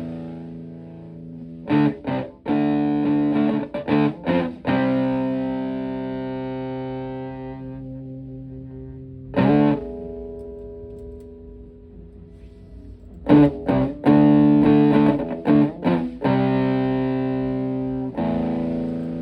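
Les Paul electric guitar played through a modified Vox Tone Bender fuzz pedal into a Fender Twin-style amp: fuzz-distorted chords. A few short choppy stabs are followed by a chord left to ring and fade, and the phrase repeats about halfway through.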